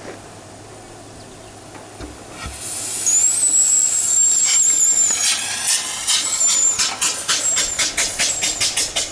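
1902 Loco Cycle steam motorcycle on its first run, its engine exhausting steam. About three seconds in, a loud hiss with a high squeal over it starts. This turns into a rhythm of exhaust chuffs that quickens to about five a second as the bike pulls away.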